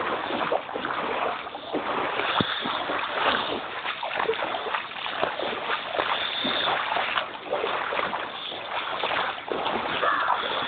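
Floodwater splashing and sloshing steadily, with many small irregular splashes.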